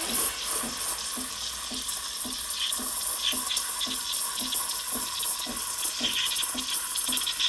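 Espresso machine steam wand hissing steadily in a pitcher of milk, frothing it, with faint regular pulsing from the machine underneath.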